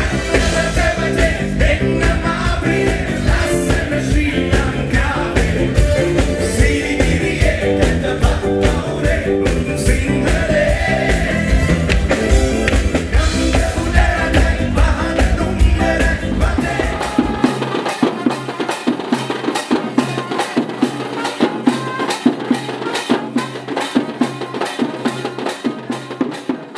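Background music: a song with drums and a steady beat. About two-thirds of the way through the bass drops out, leaving lighter percussion, and the music gets quieter near the end.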